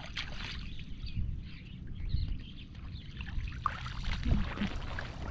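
Boots sloshing and squelching through shallow floodwater and mud, with small splashes and trickling water, over a steady low rumble.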